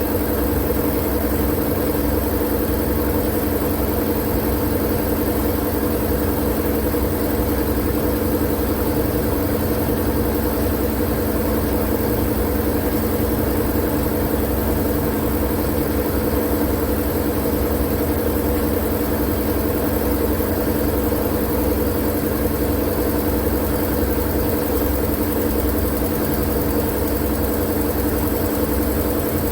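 Steady, unbroken white-noise drone with a low hum under it, used for lulling babies to sleep.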